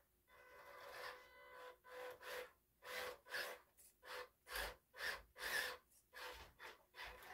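Faint whine of a 1/12 MN78 RC crawler's small brushed electric motor and gearbox, coming and going in short pulses about twice a second as the throttle is feathered at crawling speed. The tires scuff on carpet.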